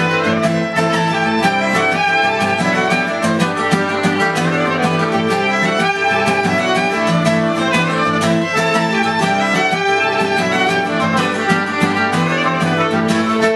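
Fiddle playing a fast Irish–Scottish dance tune over steadily strummed acoustic guitar and accordion, played live as part of a set of jigs and reels.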